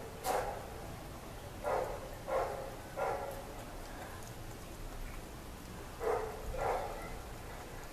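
Chow chow puppy chewing a treat: short chewing sounds, mostly in pairs, with a lull of a few seconds in the middle.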